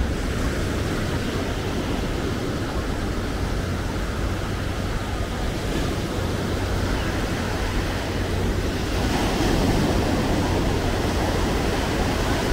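Atlantic surf breaking and washing up a sandy beach, a steady rush that swells louder about nine seconds in, over a low rumble of wind on the microphone.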